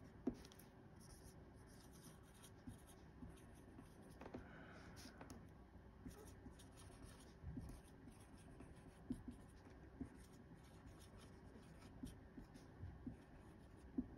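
Faint sound of a marker pen writing words on a whiteboard: short pen strokes with a few light taps as the tip meets the board.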